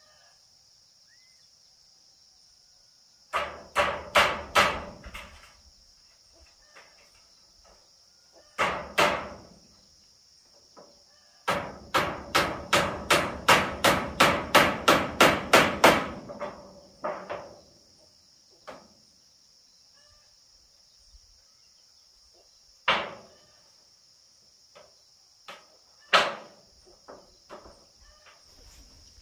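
Hammer nailing corrugated iron roofing sheets onto a timber roof frame: short bursts of blows, a long run of about a dozen quick strikes at roughly three a second in the middle, then a few single blows. A steady high insect drone underneath.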